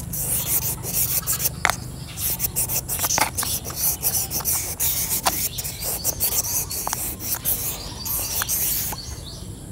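Very fine sandpaper rubbed inside the bore of a Honda City clutch master cylinder in quick, irregular rasping strokes, lightly scouring dirt off the cylinder wall, with a few sharp clicks of the metal body. The rubbing stops shortly before the end.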